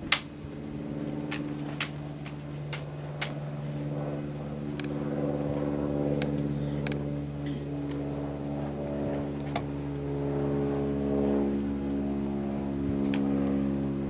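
Sharp clacks and slaps of a drill rifle being spun, tossed and caught by hand, about a dozen scattered through the stretch, the loudest right at the start. Under them runs a steady motor drone that grows slowly louder.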